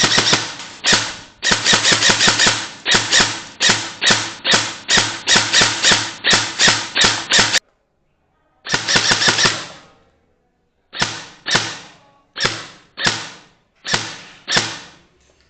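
Airsoft gun firing rapid full-auto bursts, each a fast rattle of shots. The bursts come about two a second for the first seven seconds, stop for about a second, then return as one longer burst and a run of shorter bursts spaced further apart.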